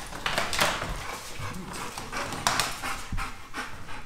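Large dog breathing hard, with several loud, irregular breaths and pants while it is held for a hip adjustment.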